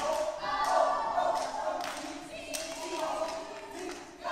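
Step team chanting in unison, punctuated by sharp hand claps and foot stomps.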